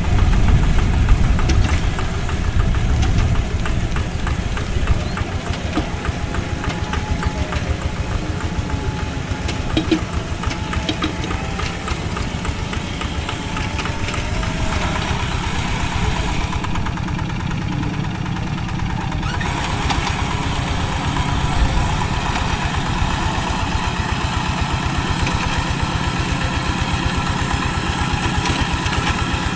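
Single-cylinder diesel engine of a two-wheel hand tractor running steadily under load as it works wet soil, with a fast, even beat.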